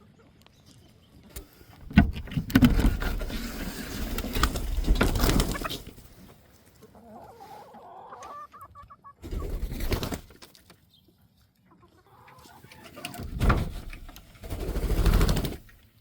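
Chickens clucking, broken by loud bursts of rustling noise from about two to six seconds in, again briefly around ten seconds, and near the end.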